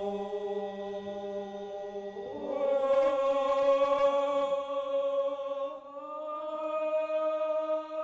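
Traditional Dayak chant sung in long held notes. The pitch slides up to a new sustained note about two seconds in and steps up slightly again near the end.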